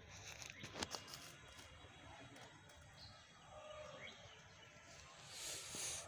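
Quiet outdoor ambience: footsteps and rustling in grass and dry leaves, with a few light clicks about a second in and a swell of rustling near the end. A couple of faint short bird chirps come midway.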